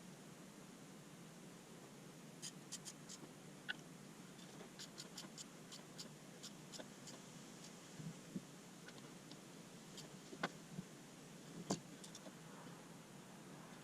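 Faint, scattered clicks and a few sharper knocks over a quiet hiss: tools and parts being handled during hand work on the tractor's injection pump.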